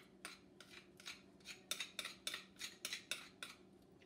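Utensil scraping tomato paste out of a small metal can in quick, repeated rasping strokes, about three a second, loudest through the middle.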